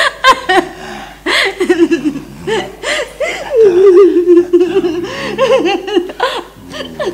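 A person laughing in short bouts, with one long wavering vocal sound about four seconds in.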